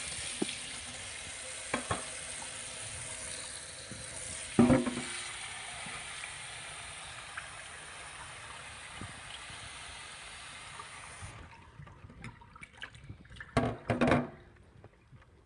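Tap water running steadily into a sink, shut off about eleven seconds in, with a loud knock partway through and two more knocks near the end.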